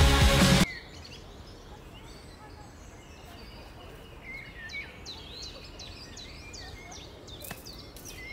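Loud music cuts off abruptly under a second in, leaving quiet outdoor ambience. Small birds chirp repeatedly in quick short calls, more busily from about halfway through, with one sharp click near the end.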